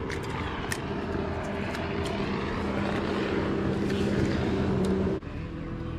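A steady engine drone, slowly growing louder, that cuts off abruptly about five seconds in. A few sharp clicks in the first two seconds.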